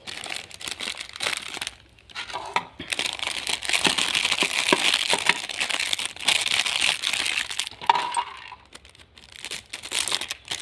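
A foil snack packet crinkling and rustling as it is cut open with scissors and emptied. The crinkling is heaviest in the middle, with small clicks as the contents tip out onto a plastic tray.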